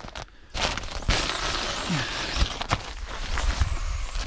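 Rustling and scuffing as an inflated Exped sleeping mat is handled and moved into a car boot, a continuous noise with a few dull knocks, starting about half a second in.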